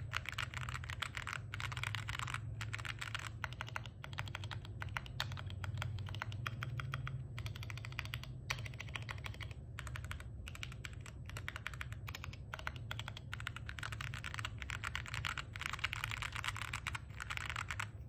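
Fast typing on a Pegasus Alice mechanical keyboard with Gateron Limbo tactile switches, an FR4 plate and Kat Alpha keycaps: a dense, continuous run of keystrokes broken by a few brief pauses, over a steady low hum.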